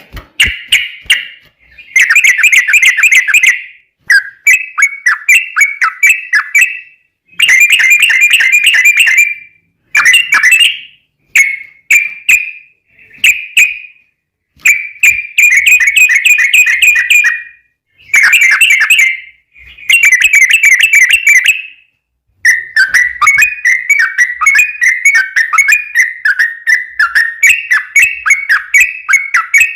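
Yellow-vented bulbul singing loud, bubbly phrases of rapidly repeated notes. The phrases come in bursts of one to three seconds with short gaps, then run on unbroken through the last third.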